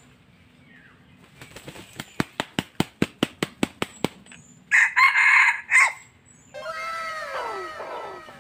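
Red junglefowl rooster beating its wings, a quick run of about a dozen flaps, then giving a loud, short crow. A string of overlapping falling tones follows near the end.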